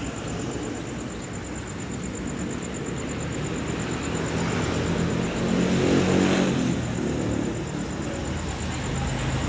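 Engine noise of a passing vehicle, swelling to a peak about six seconds in and then easing off.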